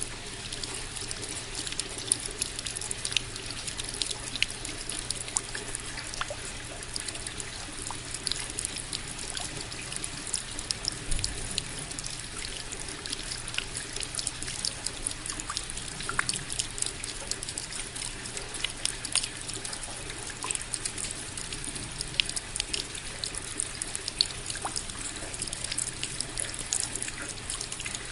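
Steady rain: an even hiss with many separate drops ticking and splashing close by.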